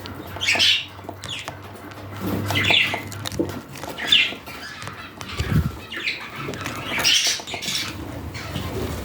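Budgerigars chirping and squawking in short bursts every second or two, with light scratching and pattering between the calls.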